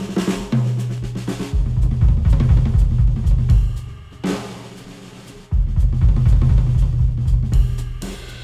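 Music with a drum kit and deep bass, played through a planar-magnetic headphone and picked up by microphones. The bass and drums fall back about three seconds in and come back in hard about two and a half seconds later.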